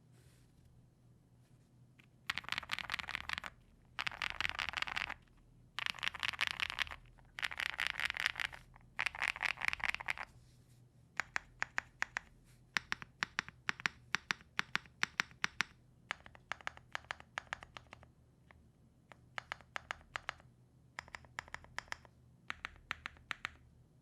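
Typing on a gasket-mounted custom mechanical keyboard with lubed Black Cherry Pie switches on a polycarbonate plate. First come five one-second bursts of very rapid key mashing, then slower typing of separate keystrokes in short runs.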